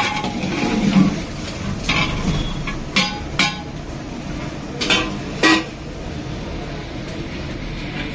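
A metal ladle clinking and knocking against a large aluminium cooking pot as it stirs and is lifted out of the gravy: about six sharp knocks in the first five and a half seconds, over a steady low background noise.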